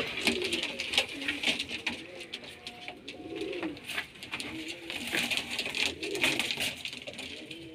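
Domestic fancy pigeons cooing over and over in low, rising-and-falling calls, with scattered short clicks among them.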